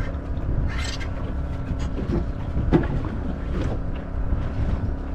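Fishing boat's motor running steadily with a low hum, with a few brief knocks and rustles over it.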